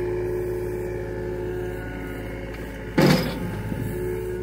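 John Deere mini excavator's diesel engine running steadily while it digs, with a sudden loud burst of noise about three seconds in as the bucket works the soil.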